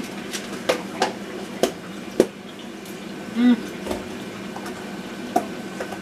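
Scattered sharp clicks and knocks of things handled on a kitchen counter, over a steady low sizzle of cutlets frying in a pan. A short hummed "mm" from a woman about three and a half seconds in.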